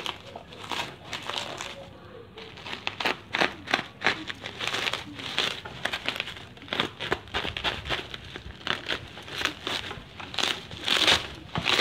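Bubble wrap and plastic packing crinkling and crackling as they are pulled off by hand in quick, irregular handfuls. It is sparse for the first two seconds or so, then turns into dense crackling.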